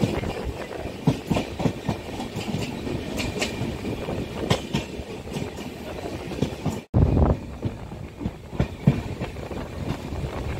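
Passenger train running, heard from inside the coach: a steady rumble with irregular wheel clacks over the rail joints. The sound drops out for an instant about seven seconds in, then comes back louder.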